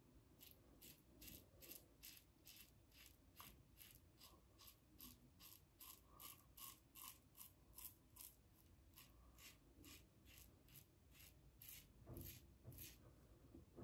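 TGS Valynor safety razor with a KAI blade scraping through lathered stubble on the against-the-grain pass: a quiet, even run of short strokes, about three a second.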